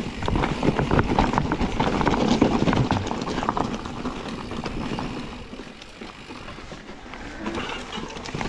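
Electric mountain bike clattering down a rough, rocky trail: rapid irregular knocks and rattles from tyres, chain and frame over rock, easing off for a few seconds after the middle.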